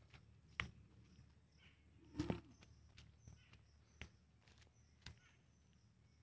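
Near silence with a few soft, scattered footsteps on muddy ground, the loudest about two seconds in.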